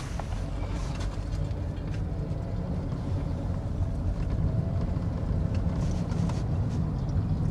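A car driving along a road: a steady low rumble of engine and tyres.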